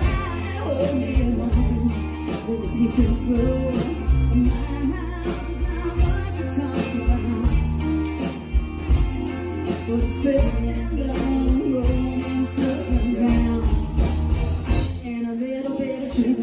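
Live country band playing through a PA system, with a steady drum beat, bass, electric and acoustic guitars and fiddle.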